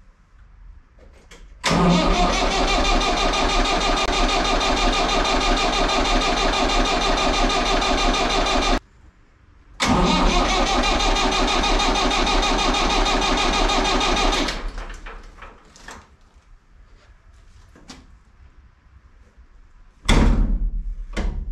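Tractor diesel engine being cranked on its starter in two long runs of about seven and five seconds, with a fast, even pulsing. The first run cuts off abruptly and the second dies away over about a second. A short, sudden loud sound that fades quickly comes near the end.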